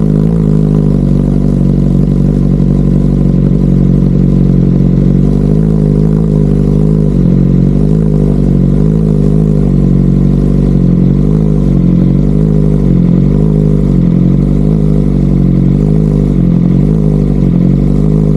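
BMW M1000RR inline-four engine idling loudly and steadily through Akrapovič titanium headers and an Arrow Pista GP black titanium slip-on muffler with no dB killer. The pitch wavers slightly about once a second.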